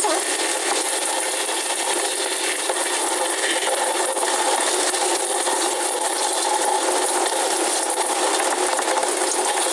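Handheld shower head spraying a small stream of water onto the head and hair as the soap is rinsed out, a steady hiss of running water with hands rubbing through wet hair.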